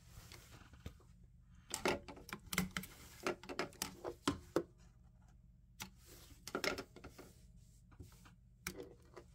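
Cotton flannel being handled at a sewing machine, pulled out from under the presser foot and laid back in place: irregular rustles and light clicks, busiest from about two to four and a half seconds in, with a few more later.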